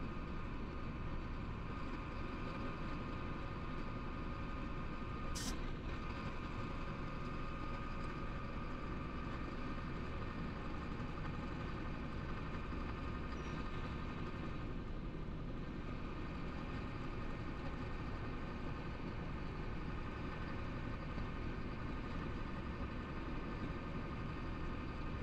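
Steady engine and road drone inside a Chenglong truck's cab while cruising at highway speed, with one brief sharp click about five seconds in.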